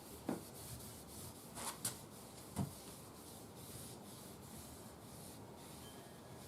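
Faint, repeated rubbing strokes of dark walnut colour being worked onto a wooden radio cabinet, with a few light knocks in the first three seconds.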